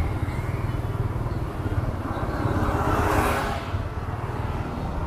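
Motorcycle engine running at low speed with road noise, a steady low hum throughout; a louder rush of noise swells and peaks about three seconds in.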